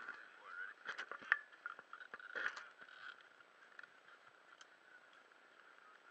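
Scuba gear being handled close to the camera: faint clicks, knocks and scrapes of fittings, straps and hoses, most of them in the first three seconds.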